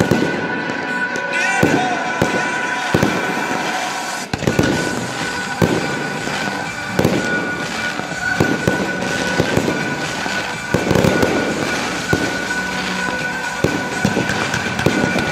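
Aerial fireworks shells bursting one after another, about one a second and sometimes in quick pairs, over the crackle of the display. Music plays underneath in a show timed to it.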